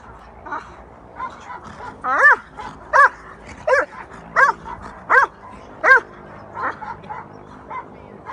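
Young muzzled Dutch Shepherd barking in a run of about six high barks less than a second apart, each rising then falling in pitch, with fainter yips between them.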